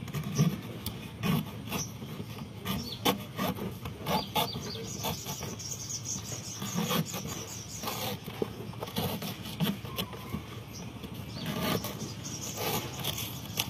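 Small knife cutting into the fibrous husk of a young green coconut: irregular scraping and crunching strokes with soft knocks as the blade works around the top, with a quicker run of scratchy strokes about halfway through.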